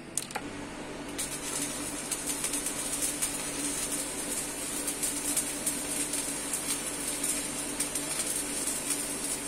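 Electric arc welding on a steel bracket: the arc strikes a moment in and keeps up a steady, fast crackling sizzle over a faint constant hum.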